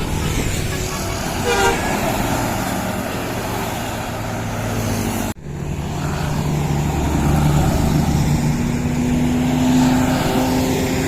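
Road noise from buses at a toll exit, with a short burst of a multi-tone telolet (Basuri) bus horn about a second and a half in. The sound cuts out abruptly for an instant about five seconds in. After that a heavy bus engine runs with a steady drone that rises slightly in pitch near the end.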